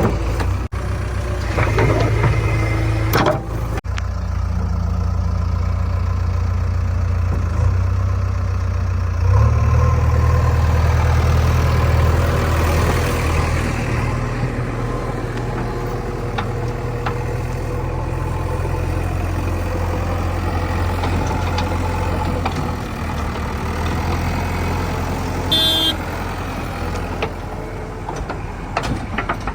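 Diesel engine of a JCB 3DX backhoe loader running as it loads mud, revving up about nine seconds in and then settling back. A brief high chirp sounds near the end.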